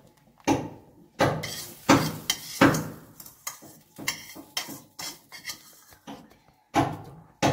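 A spoon knocking and scraping against a cooking pot and dish as fried vermicelli is added to boiled milk: a run of irregular clatters, loudest in the first three seconds, then lighter scrapes.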